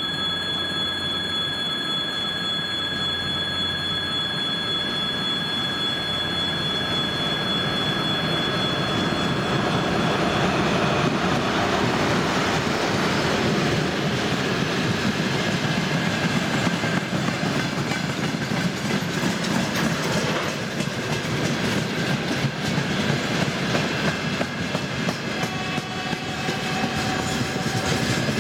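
A 2ES4K electric locomotive approaches with a steady high whine, then passes at the head of a long freight train. Tank cars and open gondola wagons roll by loudly, their wheels clattering over the rail joints, with a brief squeal near the end.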